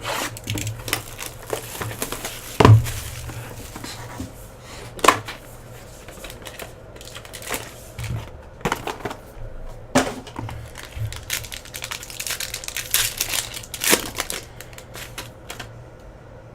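A sealed trading-card hobby box and its packs being opened by hand: plastic wrapper crinkling and tearing, with irregular clicks and taps of cardboard and cards being handled, and a few louder knocks.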